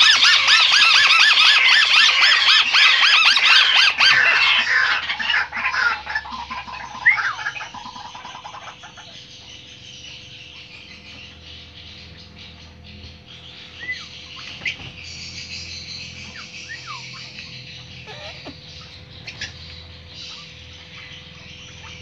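White-browed crake calling: a loud, rapid chattering of many repeated notes that dies away about seven seconds in. After that only a few scattered single call notes sound over a faint steady hum.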